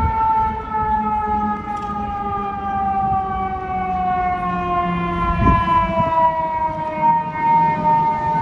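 Fire apparatus siren winding down in one long, slow falling wail, with a truck engine rumbling underneath.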